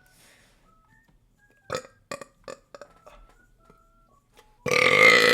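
A person belching: a few short faint sounds, then about four and a half seconds in a long, loud burp breaks out, falling slightly in pitch. It is the release of a burp the person had felt trapped.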